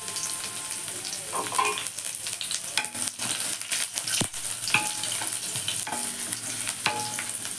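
Chopped shallots, curry leaves and mustard seeds sizzling in hot coconut oil in a steel wok, with scattered crackles and pops, while a wooden spatula stirs them around the pan.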